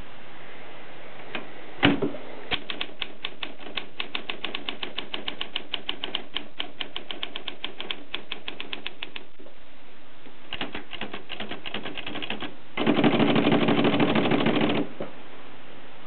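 Olympia SM3 manual portable typewriter being typed on: one sharp strike, then an even run of keystrokes at about five or six a second for some seven seconds, then lighter key clicks. Near the end comes a louder continuous rattle lasting about two seconds.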